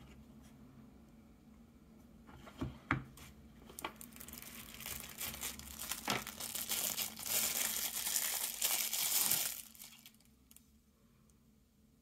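Clear plastic wrap crinkling and tearing as it is pulled off a folding pocket knife. A few sharp clicks come first, then several seconds of steady crackling that stops near the end.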